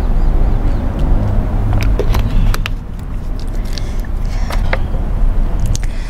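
A steady low rumble, with a few sharp crackles and clicks of a plastic water bottle being handled about two to three seconds in.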